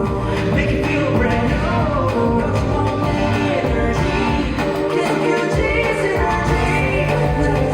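Pop song with a male lead vocal, played loud over a venue's sound system during a sound check.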